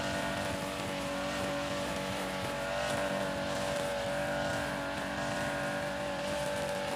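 Backpack brush cutter's small engine running steadily at high speed while its nylon-line head cuts grass.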